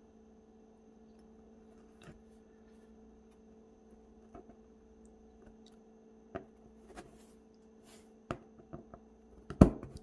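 Sparse clicks and snaps of pliers pressing LED lights and their plastic housings into tight drilled holes in a hardboard panel. The clicks come closer together in the second half, and the sharpest snap is near the end. A faint steady hum runs underneath.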